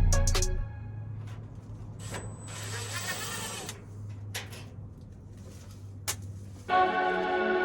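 A few clicks and a short burst of hissing noise over a steady low hum, then background music starts near the end.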